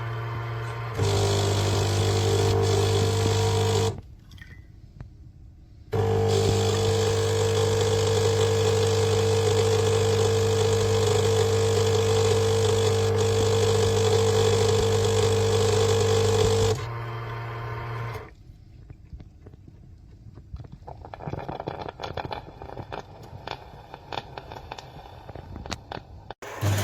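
Bean-to-cup coffee machine running in two bouts of steady buzzing hum, about three seconds and then about ten seconds long. Between and after them come quieter stretches of clicks and rattles.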